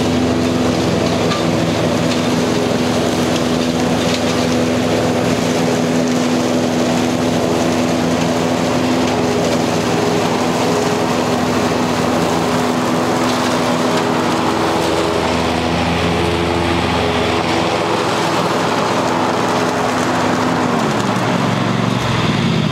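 Cub Cadet Ultima ZTX zero-turn mower's V-twin engine running steadily while mowing, its revs dropping near the end as it slows.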